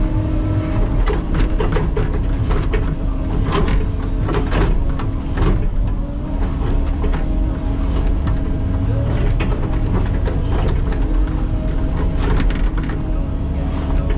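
Cat 308E mini excavator heard from inside its cab: the engine runs steadily with a constant hydraulic whine, and frequent clicks and knocks come from the tiltrotator and bucket working backfill.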